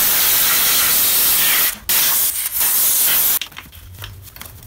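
Compressed-air wash gun spraying petrol onto a motorcycle's front drive sprocket and chain, blasting off old chain grease. It gives two long, loud hisses with a short break just before the two-second mark, then stops a little over three seconds in.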